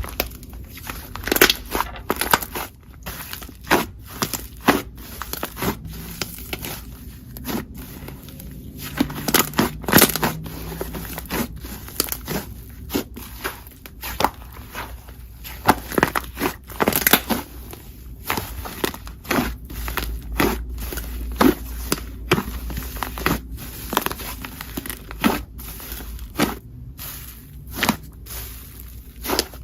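Slime being played with, making irregular crackling pops and clicks, a few each second.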